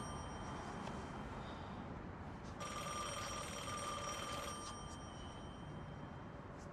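A faint, steady high-pitched ringing tone with overtones, over a soft hiss. It swells up about two and a half seconds in and fades again about two seconds later.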